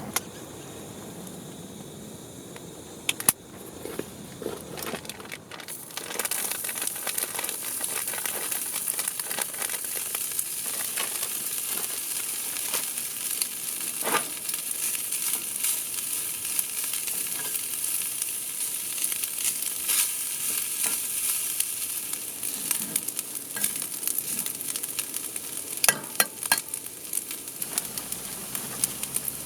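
Food sizzling in a hot pan with oil: a steady high sizzle full of small pops that starts about six seconds in. Before it come a few sharp clicks and knocks, like the pan or utensils being handled.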